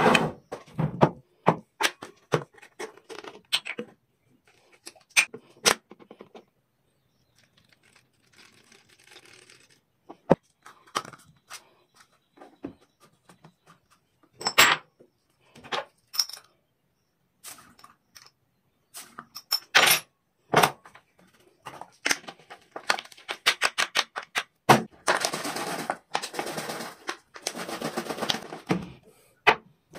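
Handling sounds from making iced coffee: a scattered series of sharp clicks and knocks, like ice, spoons and cups against glass. Near the end comes a dense stretch of rapid rattling.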